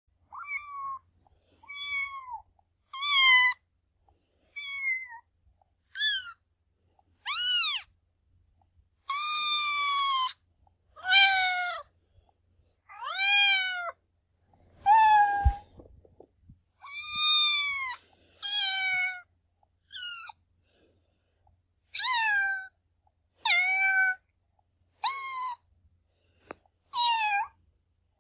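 Domestic cat meowing, a run of about seventeen separate meows of differing pitch and length, most rising then falling in pitch, with short pauses between them and one longer meow partway through.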